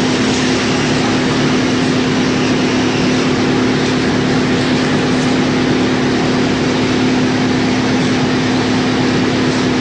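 YMPJ-218 drum wood chipper running, a loud steady machine hum with one strong constant tone under a dense rushing noise.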